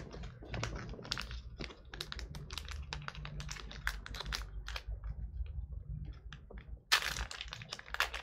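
Wrapper of a tightly sealed Topps Archives baseball card pack crackling and crinkling in the fingers as it is pried at, with a louder rip about seven seconds in as the seal gives way.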